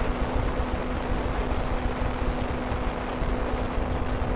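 Microlight trike in level flight: the engine and propeller run at a steady drone with a constant hum, under a rush of wind noise on the microphone.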